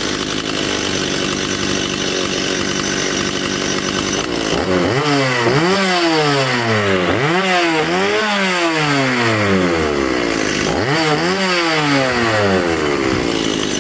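Stihl MS 170 two-stroke chainsaw running: it idles steadily, then from about four and a half seconds in is revved up and let fall back several times, engine pitch climbing and dropping. It is running again after a flooded engine was cleared and the carburettor rebuilt.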